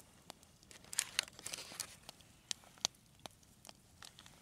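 Faint crinkling of the paper wrapped around the cheese as it is cut with a knife and the pieces are handled, with a scatter of sharp, separate clicks.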